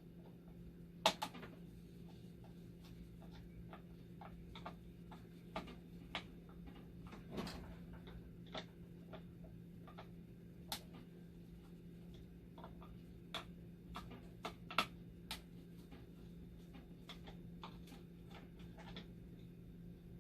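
Irregular small clicks and ticks of a screwdriver and screws being worked loose from a dialysis machine's power supply mounting, loudest about a second in and near the end, over a steady low hum.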